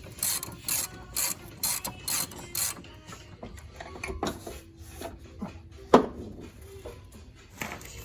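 Hand ratchet wrench worked in quick strokes, about two a second, for the first three seconds. Then come a few scattered metal clicks and one sharp knock about six seconds in.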